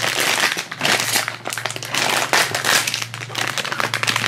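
A plastic blind-bag wrapper crinkling and crackling in the hands as it is worked and torn open: a dense, irregular run of sharp crinkles.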